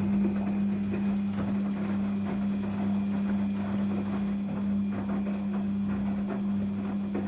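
Daewoo DWD-FT1013 washing machine running with a loud, steady electric hum over a rough, crackling rush.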